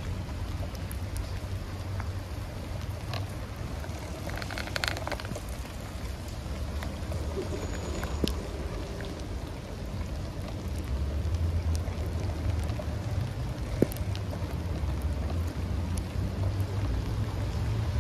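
Steady wash of rain and water on a soaked street, under a low rumble that grows louder a little past halfway, with a few light clicks.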